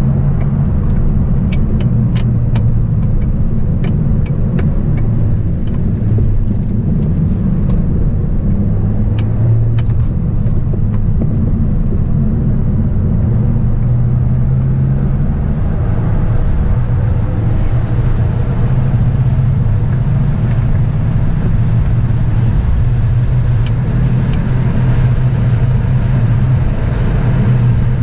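Volkswagen Golf engine and tyre noise inside the cabin at track speed: a loud, continuous drone whose engine note shifts up and down as the car is driven through the lap. A few sharp clicks come in the first few seconds.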